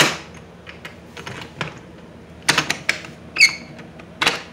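Metal doorknob and old box latch on a wooden door being rattled and worked by hand: several sharp clicks and knocks, loudest at the start and near the end, with a short high squeak shortly before the end. The door does not open.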